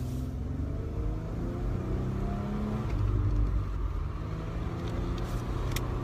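Car engine and road noise heard from inside the moving car's cabin, with a steady low rumble and the engine note slowly rising and falling in pitch.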